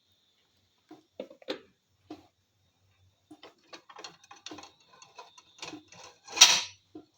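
Light, irregular clicks and knocks of kitchenware being handled, a pot and its cover or plate clinking, with one louder, longer burst of noise about six and a half seconds in.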